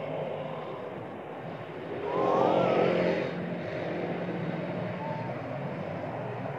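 Motor traffic noise that swells for about a second as a vehicle passes, around two seconds in. A few short rising whistle-like calls sound over it.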